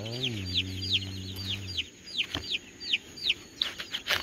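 Baby chicks peeping in the brooder: a steady run of short, high, falling peeps, about two to three a second. A man's low drawn-out voice sounds over them for the first couple of seconds, and there is some rustling near the end.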